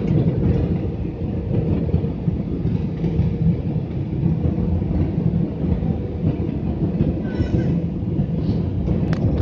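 Steady low rumble inside a jet airliner's cabin during descent to landing: turbofan engine and airflow noise heard from a window seat over the wing, with a faint steady hum.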